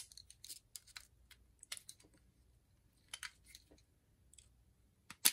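Small steel parts of an Uzi grip frame clicking and rattling as pins and springs are worked out of it by hand with a thin pick, in scattered light clicks, with a sharper click at the start and another near the end.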